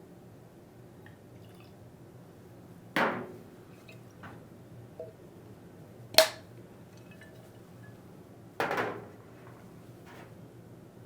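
A whiskey bottle and tasting glass handled on a table: two short knocks or scrapes, with a sharp glass clink between them about six seconds in, which is the loudest sound.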